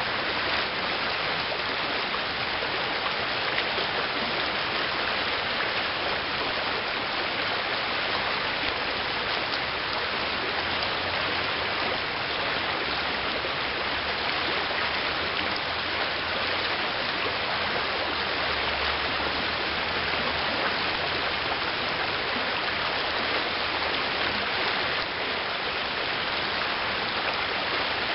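Steady rush of a shallow river riffle flowing fast over gravel, an even wash of moving water.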